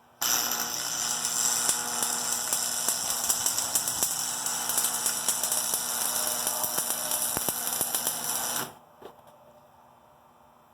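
Stick-welding arc from a Brutus electrode set at about 90 amps, running with a steady hiss and fine crackle as weld is built up inside a broken bolt's drilled-out bore. The arc strikes just after the start and breaks off abruptly after about eight and a half seconds.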